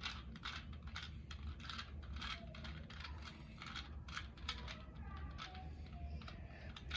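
Plastic 2x2 Rubik's cube being twisted by hand: an irregular run of quick clicks and clacks as its layers are turned, over a low steady hum.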